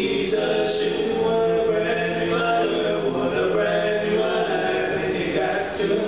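Male vocal group singing in harmony through microphones, holding long sustained chords.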